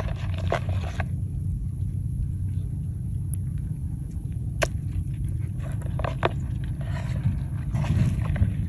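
Low steady wind rumble on the microphone, with light splashes and taps from a hand moving in a plastic basin of shallow water and handling a small crab, a few at the start and more in the last few seconds.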